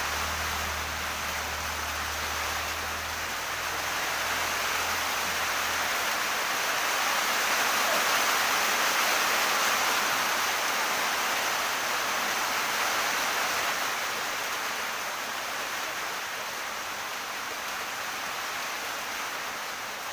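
Steady rushing, hissing noise of water that grows a little louder in the middle. A low hum underneath fades out about six seconds in.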